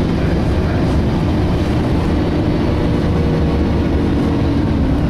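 Inside a DAF SB220 single-deck bus under way: steady engine rumble with the whirring whine of its cooling fan, the sound known as 'hoovering'. A steady higher tone joins about three seconds in.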